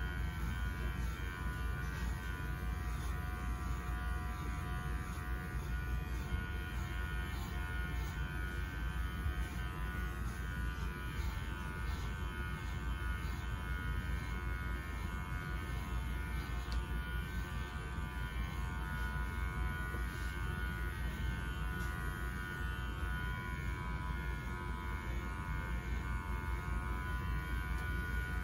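Electric dog grooming clippers running with a steady buzz and hum, without a break.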